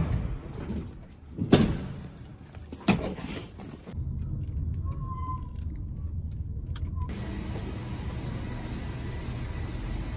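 A few knocks and thumps of someone getting into a car, one of them a car door shutting, then the steady low rumble of the car driving, heard from inside the cabin. A short beep sounds about five seconds in.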